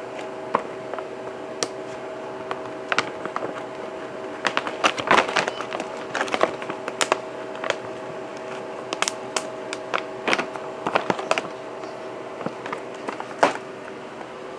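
Gallon Mylar bag crinkling as it is handled and zipped shut, giving irregular crisp clicks and crackles, thickest in the middle and with one sharp crack near the end, over a steady low hum.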